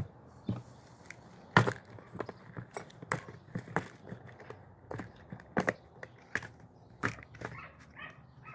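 Parts and tools being handled during a disassembly: a string of about a dozen irregular sharp clicks and knocks, the loudest about one and a half seconds in.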